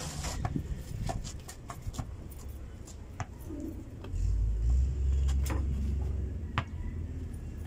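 A basketball player's ball and feet on a dirt court: scattered sharp taps and knocks at an uneven pace. A heavy low rumble comes in about halfway through and then eases off.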